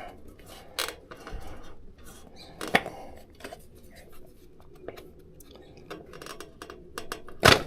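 Front engine cover of a BMW R1100GS boxer being slid and pushed into place by hand: scattered clicks and light scraping, with a loud knock near the end as it goes home.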